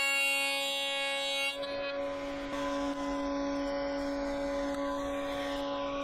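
Background music of sustained, drone-like chords, changing chord about a second and a half in.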